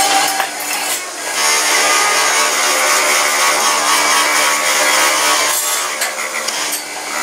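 Electric bench grinder's abrasive wheel grinding a slotted metal spatula, a steady harsh grinding hiss over the motor's running tone. It gets louder and fuller about a second in as the blade is pressed to the wheel.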